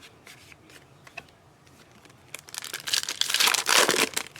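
Foil trading-card pack wrapper crinkling and tearing open for about two seconds, starting about halfway through, after a few faint clicks of cards being handled.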